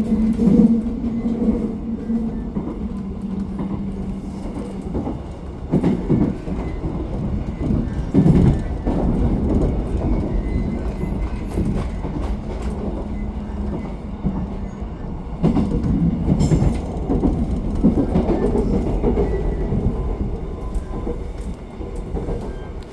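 Seoul Subway Line 2 electric train running on the Seongsu branch: wheels rumbling on the rails with clatter and a few heavy thumps about six and eight seconds in, over a steady low hum that fades out about fifteen seconds in.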